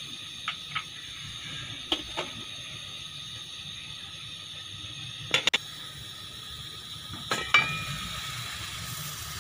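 Steady hiss from a kadhai (wok) of water and mulberries on the stove, with about four pairs of short sharp metal clicks and knocks, one pair near the end leaving a brief ring.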